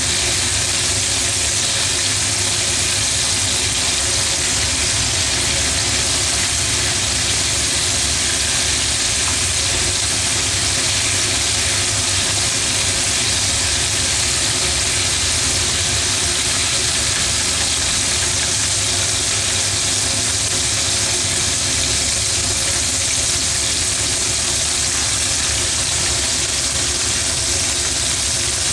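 Oil sizzling steadily as coated pieces of meat deep-fry in a frying pan, turned now and then with chopsticks. A low steady hum runs underneath.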